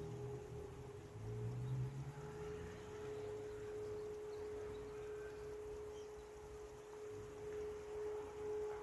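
Civil defence siren sounding a test, holding one steady, even tone at full pitch.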